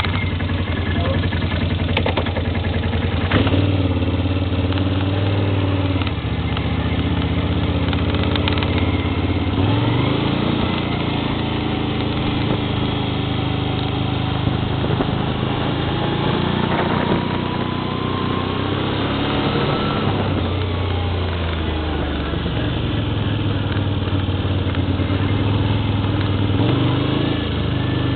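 ATV engine running under way, its pitch rising and falling as the throttle is opened and eased several times.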